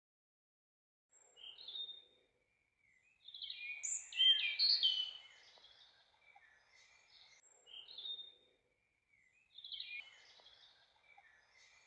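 Songbirds chirping and singing in four short spells of quick, gliding high notes, the longest and loudest a few seconds in.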